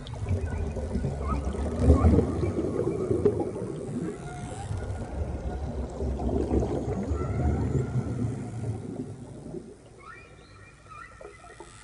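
Underwater sound effect for a submarine: a low rushing rumble, loudest about two seconds in, that dies away after about nine seconds, leaving faint high drawn-out tones.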